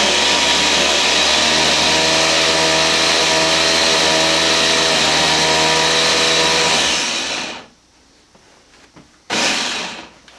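Small electric food chopper running with a steady motor whine as it chops cucumber pieces, then winding down about seven seconds in. A second short pulse comes near the end.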